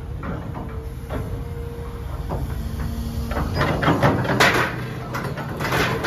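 Hydraulic excavator's diesel engine running with a steady low rumble and a few single knocks. About three and a half seconds in, a louder run of metal clanking and scraping starts as its bucket works the scrap metal load off a trailer.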